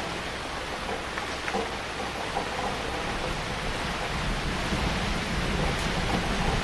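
Heavy rain falling steadily, with a low rumble of thunder building over the last couple of seconds.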